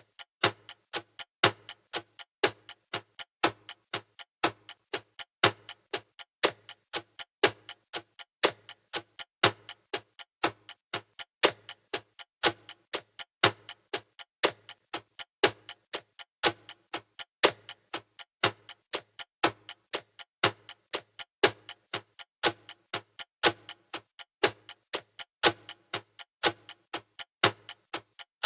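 Analog clock ticking steadily: sharp, even ticks, a louder one about once a second with softer ticks in between.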